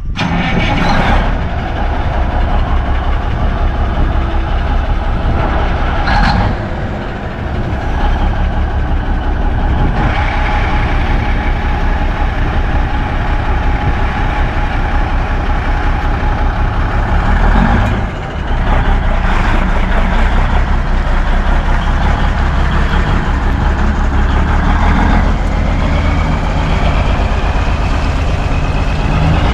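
1971 Peterbilt 359 semi tractor's diesel engine idling, with a few short air hisses. Near the end the engine revs up, its pitch rising as the truck pulls away.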